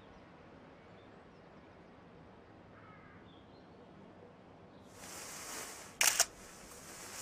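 Panasonic Lumix G camera's shutter firing, two sharp clicks in quick succession about six seconds in. Before that there is quiet outdoor ambience with a faint bird call, and a soft hiss swells for about a second just before the clicks.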